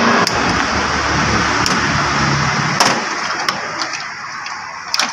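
Steady rushing background noise that eases off after about three seconds, with several sharp clicks and taps as wires, a solder spool and small tools are handled on a metal workbench.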